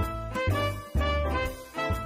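Background music: an upbeat tune with a steady bouncing bass beat.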